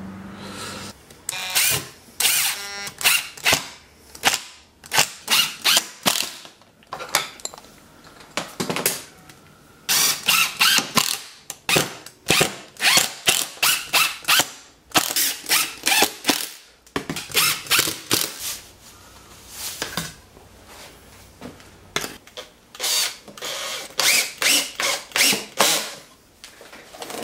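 Makita 18V cordless drill driving screws into wood in many short bursts, with brief pauses between them.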